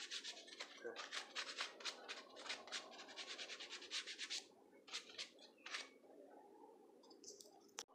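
A cloth rubbing quickly back and forth over sanded wooden cut-out letters, wiping the dust off. The strokes come thick and fast for about four seconds, then thin out to a few single wipes and stop. A sharp click comes just before the end.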